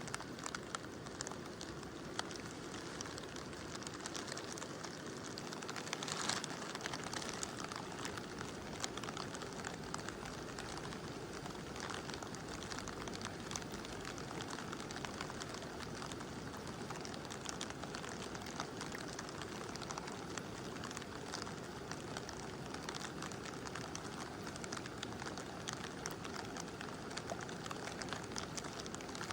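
Steady rush of a mountain river with rain falling, many small drop ticks scattered through it.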